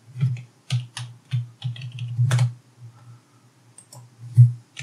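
Computer keyboard typing: about a dozen irregular keystrokes, with a quicker cluster around the middle.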